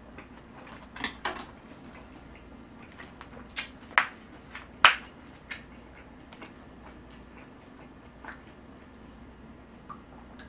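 Close-up eating sounds: chewing and lip smacks, with several short sharp clicks. The loudest clicks come about four and five seconds in.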